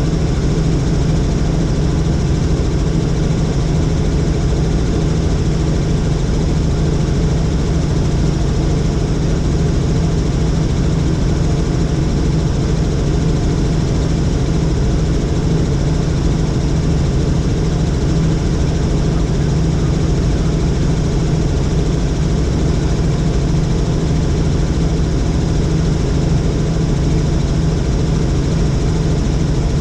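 Helicopter engine and rotor running steadily: a loud, constant low drone with no change in pitch or level.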